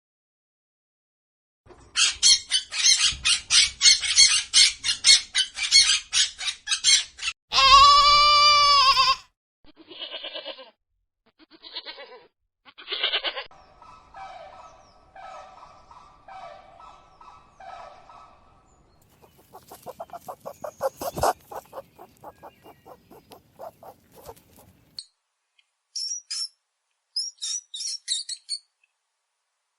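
Recorded animal and bird calls, one after another with short gaps. First comes a long run of rapid pulses, then a single drawn-out call, then shorter calls and another quick pulsing run, and high chirps near the end.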